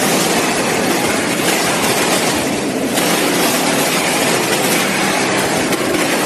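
Steady, loud machinery noise of a frozen-chicken processing line: belt conveyors running with a fine, even rattle.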